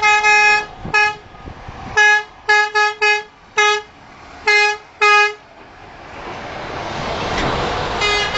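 Semi-truck horn honking a series of short toots on one steady note, some in quick bursts, for the children waving from the roadside. After about five seconds the honking stops and the rumble of a truck rolling past grows louder toward the end.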